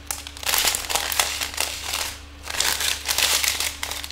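Thin plastic bags of resin diamond-painting drills crinkling as they are handled, with the tiny drills rattling and shifting inside, in two bouts with a short lull between.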